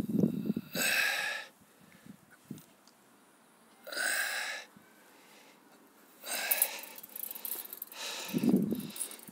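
A person breathing close to the microphone: four breaths a few seconds apart.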